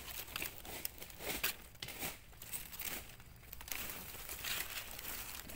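Dry fallen leaves crackling and rustling as a hand digs through the leaf litter to pick out a mushroom button, with irregular sharp crackles.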